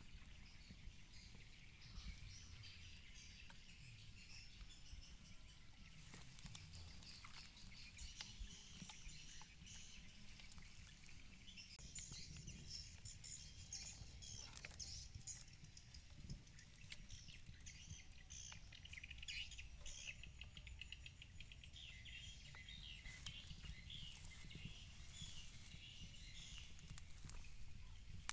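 Faint chirping of small birds, busier in the second half, over a low rumble, with a few small clicks.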